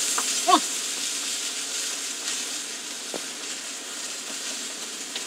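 Ground spice paste sizzling in hot oil in a wok, a steady hiss that eases slightly. There is a short sliding sound about half a second in.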